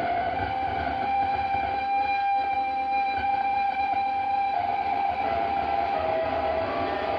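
Improvised instrumental rock from an electric guitar, bass and drums trio, dominated by one long held note that wavers slightly in pitch over a low bass rumble.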